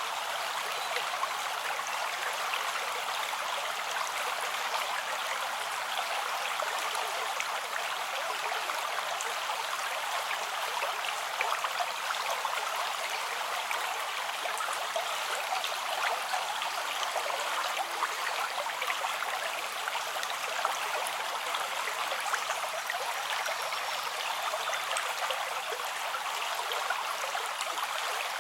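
River or stream flowing steadily: an even, continuous rush of running water.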